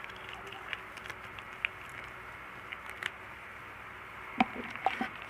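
Scattered light clicks and taps of kitchen utensils and containers, with a few sharper knocks near the end.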